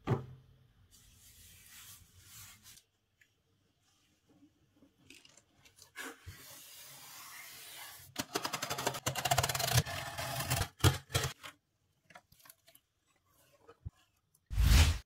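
Cardboard shipping box handled and opened: a knock, light rubbing and scraping, then packing tape peeled off the cardboard in a long rasping rip, a few small clicks as the flaps are worked open, and a short loud burst of cardboard noise near the end.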